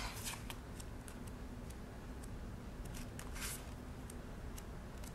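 Paper pages of a sticker book being flipped through by hand: a string of soft paper flicks and rustles at irregular spacing, with one fuller rustle about three and a half seconds in.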